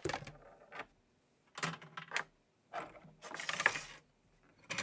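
Pieces of a three-part GPU water block being handled, clicking and clattering against each other in three short bursts.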